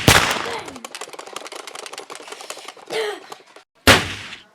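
A fast run of sharp clicks with short vocal sounds, then a single loud bang near the end, sounding like gunfire.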